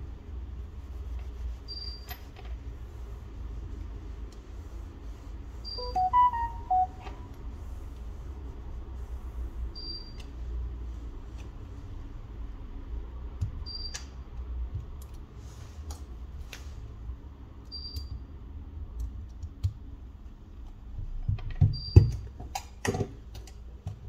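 A short electronic chime of a few stepped notes about six seconds in, and a faint high beep repeating about every four seconds. Scattered sharp clicks and taps, clustered near the end, sit over a low steady hum.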